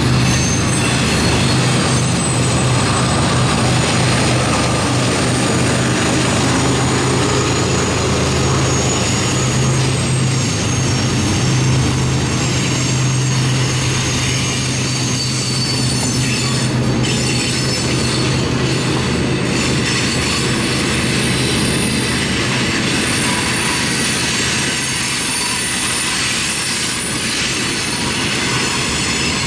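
Freight train cars rolling past on a curve: a steady rumble of steel wheels on rail with thin, high wheel squeal. A low steady hum under it fades out about halfway through.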